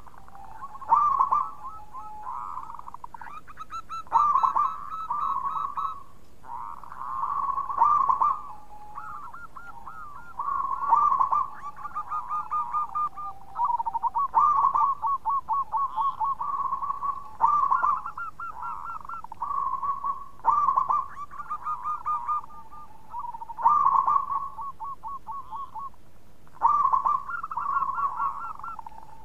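Zebra dove (perkutut) singing its cooing song over and over. Each phrase opens with a loud coo and runs on into a quick string of shorter staccato notes, with a new phrase about every three seconds.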